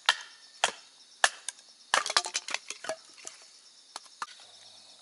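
Firewood being chopped into kindling: sharp wooden knocks about every half second, then a quick flurry of smaller cracks and clatter about two seconds in, and a few single knocks near the end. Crickets chirp faintly behind.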